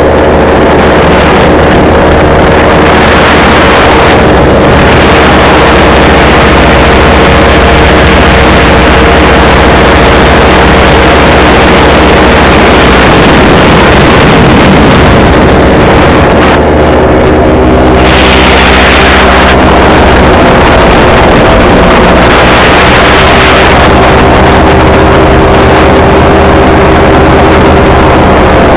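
Paramotor engine and propeller running steadily in flight, very loud and close, its drone holding a near-constant pitch that drifts only slightly.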